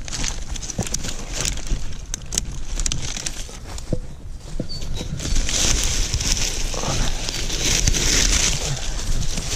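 Wind buffeting the microphone, with scattered light knocks and a rushing hiss that swells from about five seconds in and fades near the end.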